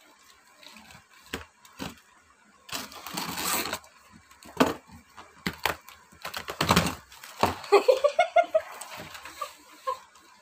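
Scissors cutting packing tape along the seam of a cardboard box: sharp clicks of the blades and a couple of longer scraping, rustling stretches as the tape and cardboard flaps give way. A short murmur of a voice comes about eight seconds in.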